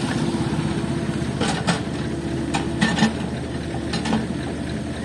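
Diesel engine of a backhoe running steadily, with a string of sharp clanks from the machine working, about seven of them between roughly a second and a half and four seconds in.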